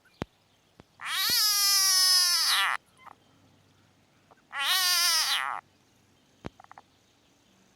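Southern bell frog squeaking in distress when pressed: two long, pitched cries, the first nearly two seconds and the second about one second, each falling slightly in pitch.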